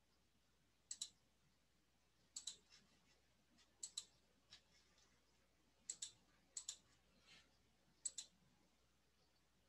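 Faint computer mouse clicks: about six quick pairs of sharp clicks, spread a second or two apart.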